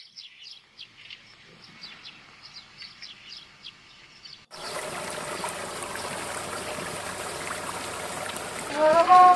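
Small birds chirping repeatedly over a quiet background, then a sudden change about halfway through to water gushing from a pipe and splashing over rocks. Near the end a flute begins playing a melody over the water.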